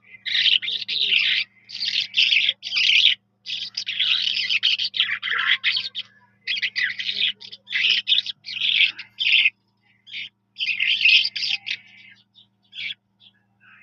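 Skylark singing: a string of rapid, warbling phrases with short breaks between them, giving way to a few brief chirps near the end. A faint steady low hum lies underneath.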